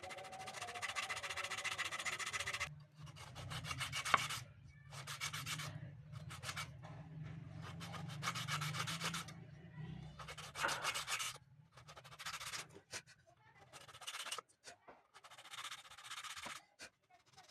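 Bamboo spoon piece rubbed by hand against sandpaper on a board, in repeated bursts of quick scratchy strokes with short pauses between them. A low steady hum runs underneath until near the end.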